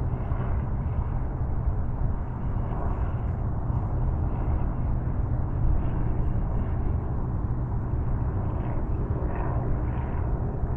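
Steady low outdoor rumble, heaviest in the bass, with no distinct events.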